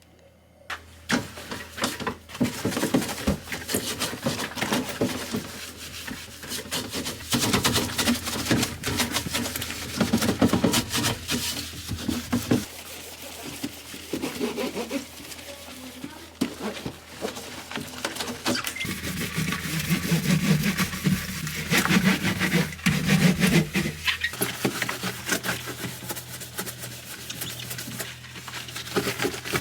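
Household items being handled during kitchen cleaning: repeated clicks, knocks and clatter mixed with rubbing and scrubbing, with no steady rhythm.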